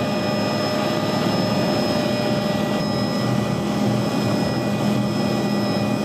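Helicopter turbine and rotor noise, steady with a constant high whine over a low hum, as the helicopter descends to land.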